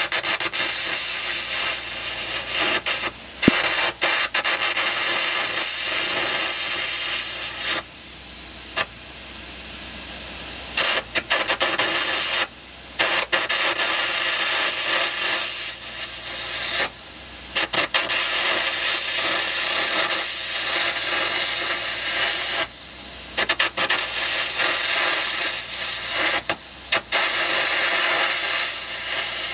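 Air carbon arc gouging: a copper-coated carbon rod arcing against the steel ejector rail of a Caterpillar 637E scraper while a compressed-air jet blows the molten metal away, gouging out the worn rail. A loud, harsh, crackling hiss that breaks off for a moment several times.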